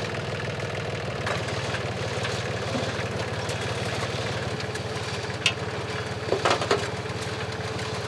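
Small tractor engine running steadily while it pulls a potato harvester, with a few sharp knocks and clanks about five and a half and six and a half seconds in.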